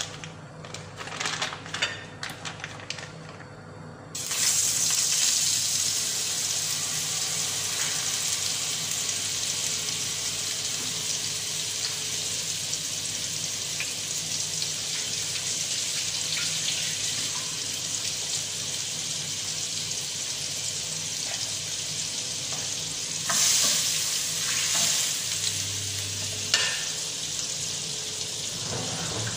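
Butter dropped into hot oil in a frying pan about four seconds in, setting off a sudden, loud, steady sizzle as it melts and foams, with a few light clinks just before.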